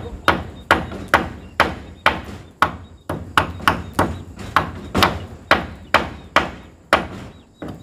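Hammer driving nails into a wall being put up, with sharp, steady blows about twice a second.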